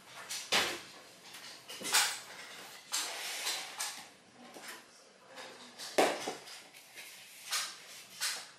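Spatula scraping and tapping in a mixing bowl as flour and sugar are lightly stirred, with a string of sharp knocks and clatter of utensils and containers; the loudest knocks come about two and six seconds in.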